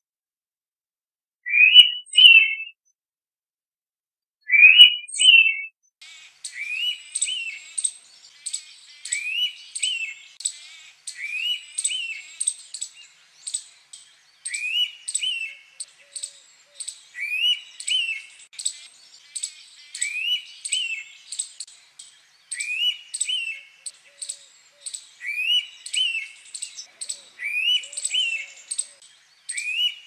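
Indian pitta calling its double-noted whistle, 'whee-tiou', repeated every two to three seconds. From about six seconds in, faint rapid high chirping runs behind the calls.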